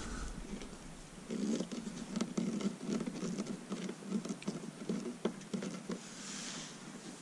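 Hand screwdriver turning a machine screw down into fiberglass to hold a compass base: irregular scraping, creaking rasps and light clicks, mostly from about one second in to a little past five seconds. A brief hiss follows near the end.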